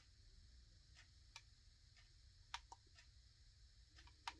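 A few faint, sharp clicks at irregular intervals over near silence: buttons being pressed on a projection alarm clock while its settings are adjusted.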